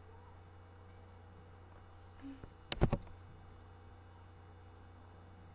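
Steady low hum, with a quick run of a few sharp clicks about three seconds in.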